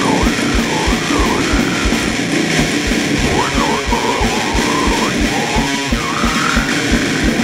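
Extreme metal music: heavily distorted electric guitar and drums, with a steady, dense kick-drum beat.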